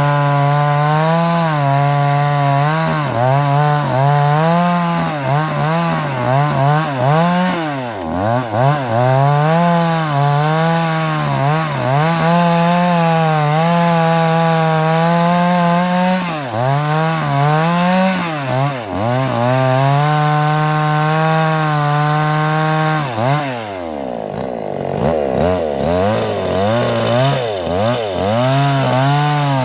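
Two-stroke chainsaw running at high revs while cutting wood. Its pitch dips and recovers again and again as the chain takes load. Near the end it drops low for a few seconds, then revs up again.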